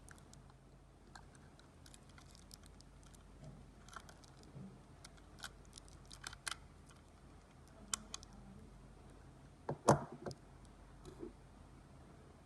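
Scattered small clicks and taps of hands working on a portable coffee grinder's body and internal parts during a battery swap, with one louder knock about ten seconds in.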